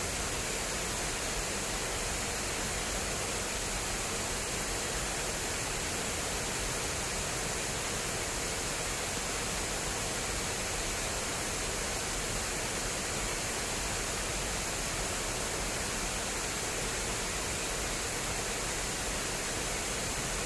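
Water rushing fast and steadily through an irrigation channel, a continuous even flow with no let-up.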